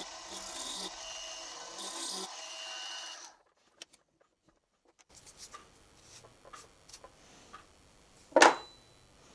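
Milling machine running with a cutter taking a cut into a metal part: a steady whine with a rough rasping, which stops suddenly about three seconds in. Then a few faint clicks, and one sharp knock near the end.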